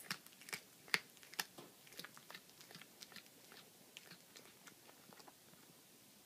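Domestic cat chewing a baby rabbit, crunching through bone: sharp, irregular crunches about two a second, loudest in the first couple of seconds and thinning out toward the end.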